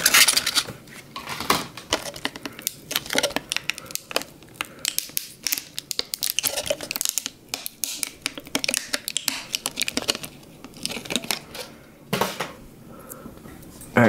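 Hands working stiff plastic packaging: a long run of irregular crinkling, scratching and sharp clicks as a new laptop RAM stick (SODIMM) is taken out of it, with a louder crackle at the start and again near the end.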